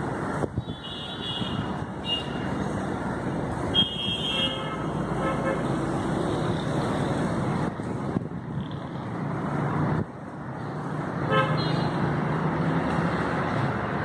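Steady hum of city road traffic, with a few short car horn toots about a second in, around four seconds in, and again near eleven seconds.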